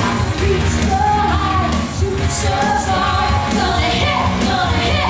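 Loud rock song over the theatre sound system, with a woman singing lead over a steady heavy bass and drum beat.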